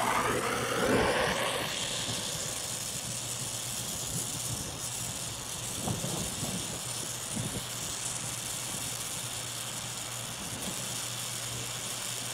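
Oxy-acetylene welding torch with a neutral flame hissing steadily while it heats thin steel to a molten puddle, with a couple of faint pops about halfway through. A louder wavering sound fades out over the first two seconds.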